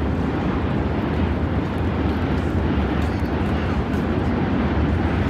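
Steady low rumble of outdoor background noise, with no single sound standing out.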